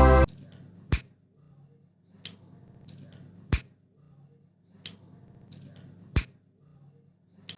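A quiet break in electronic background music: six sharp snap-like hits, about one every 1.3 seconds and alternating stronger and weaker, over a faint low hum.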